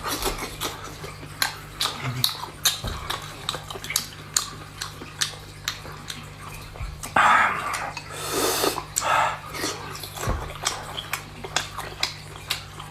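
Close-up eating sounds of shellfish: snail shells clicking and cracking, with chewing and sucking at the meat, a few sharp clicks a second. A louder sucking slurp comes about seven to nine seconds in. A steady low hum runs underneath.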